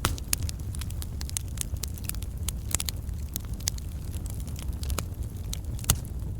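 Wood fire burning logs: a steady low rumble of flame under irregular sharp crackles and pops of burning wood, with louder pops at the start and near the end.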